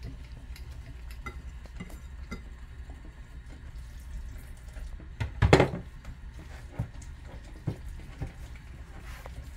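A utensil stirring a flour-and-water mixture for hilbet in a pot, with scattered scrapes and clicks against the pot and one louder knock about five and a half seconds in, over a steady low hum.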